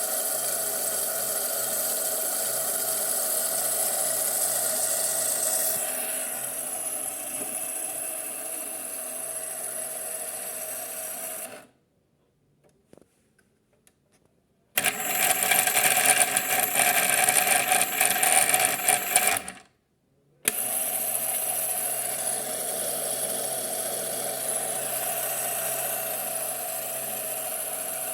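Piko Sonnette toy washing machine's small electric motor running with a steady high whine. It cuts out about eleven seconds in, leaving a few faint clicks. It starts again louder and rattlier for about five seconds, stops briefly, and then runs steadily again.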